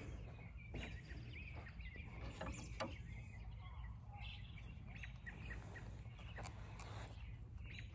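Faint outdoor background with birds chirping and a few light clicks, one a little louder about three seconds in.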